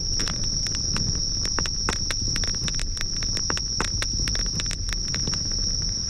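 Crickets chirring in one unbroken high-pitched trill over a campfire crackling with irregular sharp pops.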